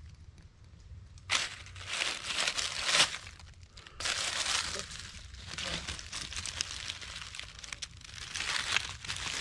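Dry fallen oak leaves crackling and rustling as a hand pushes a small toy truck through them. The crackling starts about a second in and goes on unevenly, with a short lull about four seconds in.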